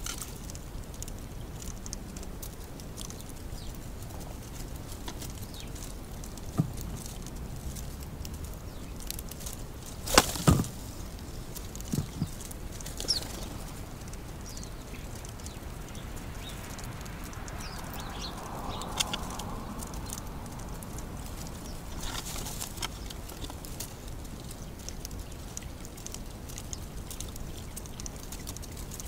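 Wood pigeons' wings flapping in a few short flurries at a seed tray. The loudest is a double flap about a third of the way in, with smaller flaps a couple of seconds later. A steady outdoor hiss and faint bird chirps run underneath.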